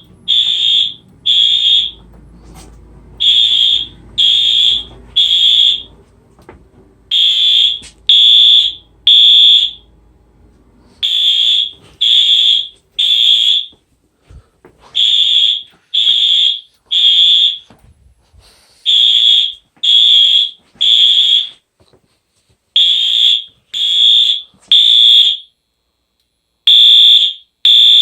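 Wheelock AS fire alarm horn sounding a loud, high-pitched electronic tone in the temporal-three pattern: three half-second blasts, a short pause, repeating about every four seconds.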